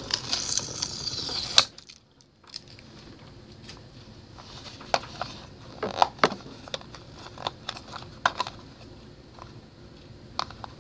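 Seal sticker peeled off a hard plastic fidget-cube box, with a scratchy tearing hiss over the first second and a half. After that come scattered light clicks and taps of fingernails and fingers on the plastic as the box is turned and the next sticker is picked at.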